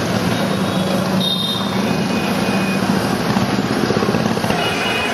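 Busy street traffic of motorcycles, scooters and an auto-rickshaw running close by, over a steady engine hum.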